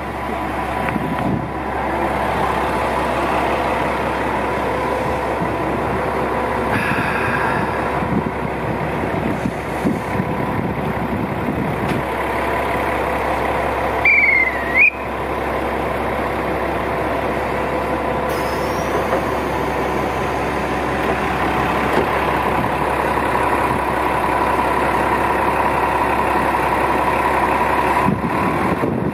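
Diesel railcar's engine idling steadily while the train stands at the station platform. About halfway through, a short high whistle-like call that dips and rises sounds once.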